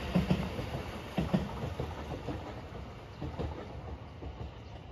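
Rapid Marine Liner electric train's wheels clacking over rail joints as it moves away, the clacks growing steadily fainter over a low rolling rumble.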